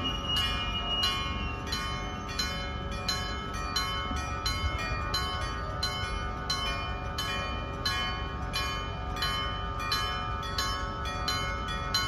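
Electric-bell (denshō) level crossing alarm, its hammer striking a metal gong in a steady rhythm of about two strikes a second, each stroke ringing on into the next. It is warning that the crossing is closed for a tram.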